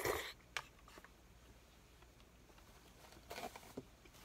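A short noisy slurp of noodles at the start, then quiet with a few faint clicks and a small rustle near the end.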